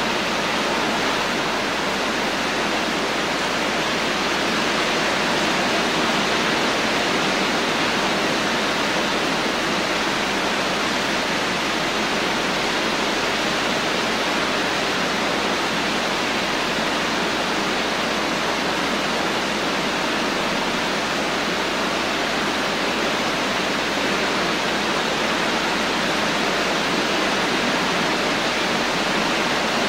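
Steady rain: an even, unbroken hiss with no single drops or thunder standing out.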